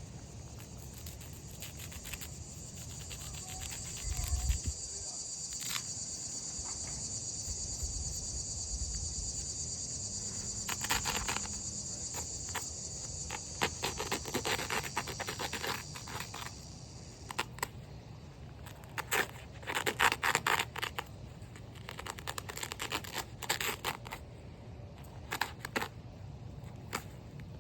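Insects trilling steadily at high pitch, stopping about two-thirds of the way through. Over it come bursts of scraping and crunching as a knife cuts through turf and soil, loudest about 20 seconds in.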